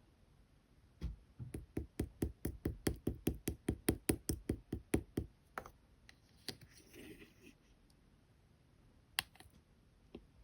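Clear gel slime being pressed and squished by hand in a quick even rhythm, about four to five soft sticky clicks a second for around four seconds. After that come a few scattered squishes and one sharp click near the end.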